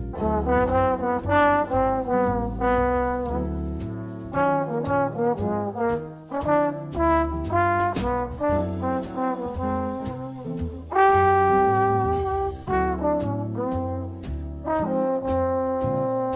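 Background instrumental music: a melody of held notes over a moving bass line, with light, regular percussion ticks.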